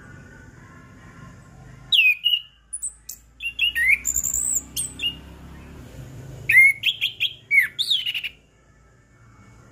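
Chestnut-capped thrush (anis kembang) singing: bursts of quick, loud whistled notes with sliding pitch, starting about two seconds in and stopping shortly before the end.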